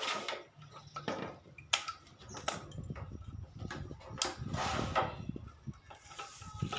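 Clicks and light knocks of a wooden bird cage's parts being handled and fitted together by hand, with a brief rustle about four and a half seconds in.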